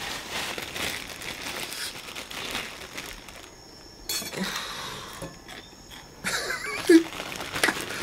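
Plastic bag crinkling and rustling as food is handled from it, with a few light clicks and knocks.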